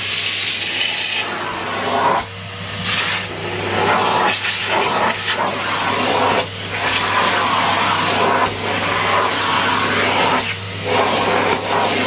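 Numatic Henry 160 cylinder vacuum cleaner running with a steady motor hum and rush of suction as its floor nozzle is pushed over carpet, picking up scattered oatmeal. The rush dips briefly a few times as the nozzle is moved.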